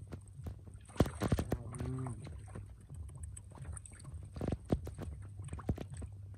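Hands splashing and sloshing through shallow muddy water while grabbing fish, with irregular splashes and knocks; the sharpest come about a second in and again about four and a half seconds in.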